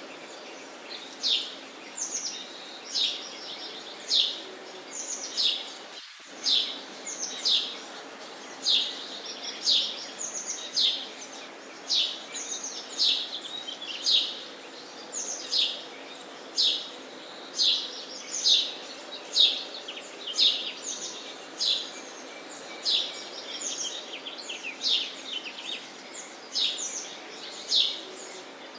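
Sparrows chirping, short sharp falling chirps repeated about once a second, over steady low background noise.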